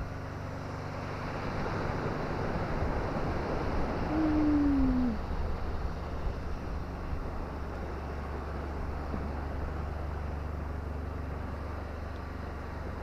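Wind rumbling on the microphone, with one short animal call sliding downward in pitch about four seconds in.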